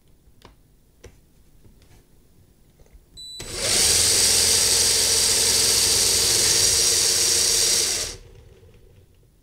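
Small Lego electric motor spinning a wheel on a greased Lego axle through its gears: it starts about three seconds in, runs at a steady high speed with a whine for about five seconds, then cuts off. Faint clicks of hands on the rig come before it.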